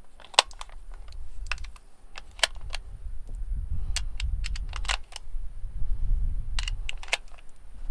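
Sharp metallic clicks, about one every second or so, of steel-cased 7.62x39 cartridges being pressed one by one into a rifle magazine, over a low rumble of handling.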